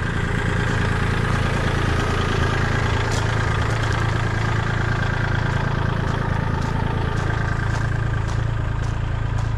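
Kubota compact tractor's diesel engine running at a steady idle.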